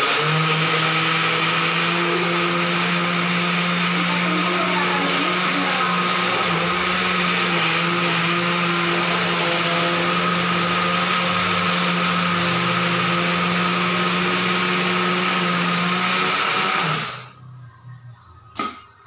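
Small electric countertop blender running steadily at full speed, blending avocado with milk, sugar and water into juice. The motor cuts off about seventeen seconds in, followed by a short knock.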